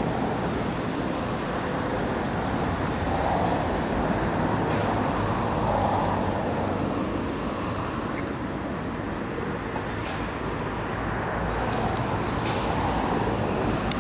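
Steady rumble of city road traffic, swelling gently every few seconds as vehicles pass, with a few faint high ticks over it.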